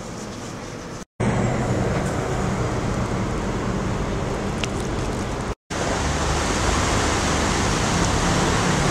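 Steady rushing of a shallow stream running over rocks and small cascades, broken by two brief dropouts, one about a second in and one halfway through. The first second is quieter indoor background.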